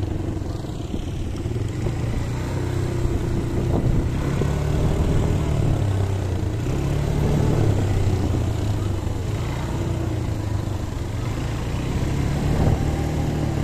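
ATV (quad bike) engine running steadily, its pitch rising and falling gently several times as the throttle changes.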